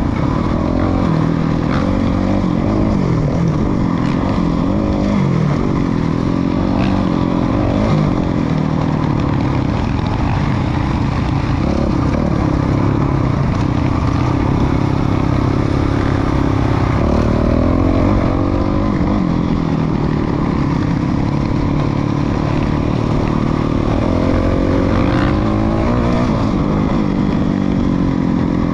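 2019 Suzuki RMZ450's single-cylinder four-stroke engine with a Yoshimura RS-12 full exhaust, heard from on the bike while riding. The revs rise and fall again and again as the throttle is opened and closed.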